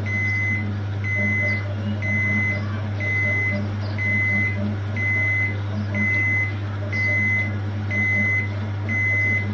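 Oxyhydrogen generator running, with a steady low electrical hum under a general hiss. A short high beep repeats about every 0.8 seconds throughout.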